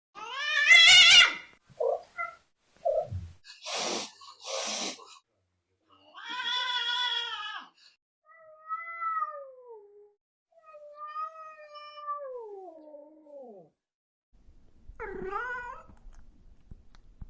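Angry cats yowling and hissing: a loud yowl, short growls, two hisses, then long drawn-out yowls that slide down in pitch.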